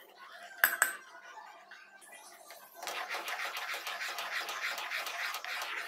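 Two sharp metal taps of a steel tumbler against the pan early on, then a spoon stirring semolina into boiling water in a metal pan: a steady, fast scratchy scraping from about three seconds in, the stage where the rava is worked into the water to make upma.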